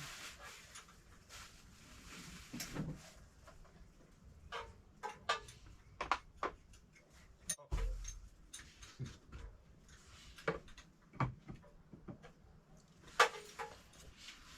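Irregular clicks, taps and knocks of tools and engine parts being handled, with a dull thump about eight seconds in and a sharp click near the end. No engine is running.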